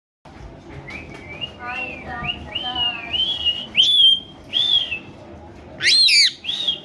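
Pet rose-ringed (Indian ringneck) parrot whistling: a string of short rising and falling whistled notes, loudest about four and six seconds in, the note near six seconds a sharp downward sweep.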